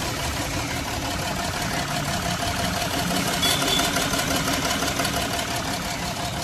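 Jaguar XF's V6 diesel engine idling and shaking with cylinder 1 misfiring, the fault read as P0301, cylinder 1 misfire detected.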